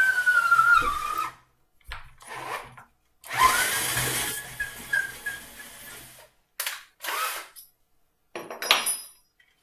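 Power drill boring the shank hole through the wood from the front: the motor whine sags in pitch and stops about a second in, then the drill spins up again about three seconds in and runs for a few seconds before winding down, followed by a few short bursts near the end.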